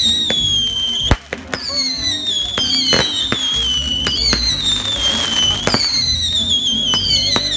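Consumer fireworks going off: four shrill whistles, each falling in pitch over about a second and a half, with sharp bangs from the bursting shells scattered between them.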